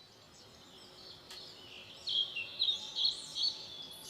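Birds chirping, a series of quick high chirps and calls, loudest in a run of four or five from about two seconds in.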